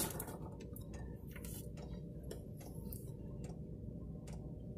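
Light, irregular clicks and taps as a new twin-lip oil seal is handled and offered up over the splined output shaft of a Turner T5A gearbox's rear housing, over a steady low hum.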